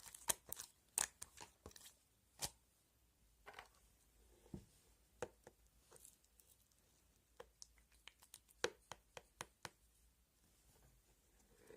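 Sharp, irregular clicks and taps, close together in the first couple of seconds and more scattered after, like small objects being handled.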